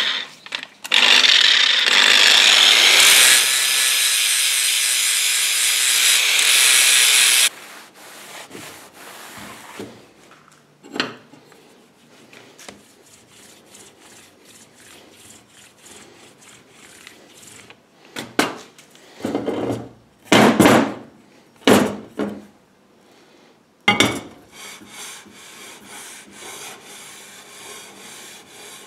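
An angle grinder grinding the high spots off a steel straightedge, a loud steady grinding about a second in that stops abruptly some six seconds later. Then a vise-made straightedge is slid over a blue-coated plate to show contact spots, with light handling knocks and a few short rasping strokes of metal rubbing on metal.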